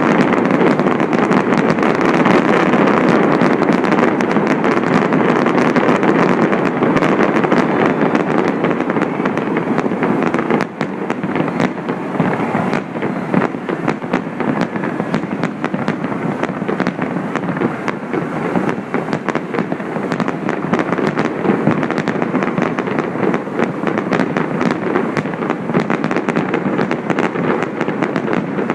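Fireworks display: many bursts and crackling pops in rapid, irregular succession, thicker in the second half, over a steady rushing noise.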